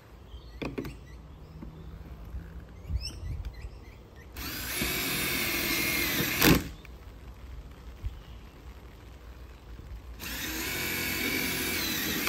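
Cordless drill driving screws to fix a heavy-duty hinge to a PVC gate: two runs of about two seconds each, each ending in a sharp click.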